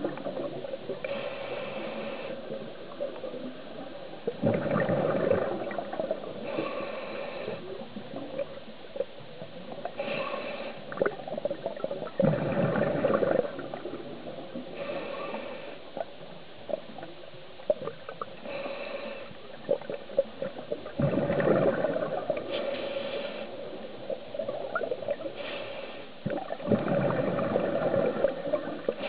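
Diver's scuba regulator breathing underwater: a hissing inhalation, then a bubbling rush of exhaled air, repeating about every five to six seconds. A steady hum runs underneath.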